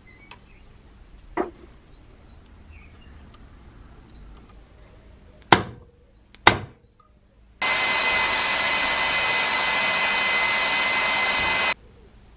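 Two sharp metal strikes about a second apart, a hammer on a punch held against a small welded steel boss, then an electric drill runs steadily for about four seconds, drilling the hole for a tap, and cuts off sharply.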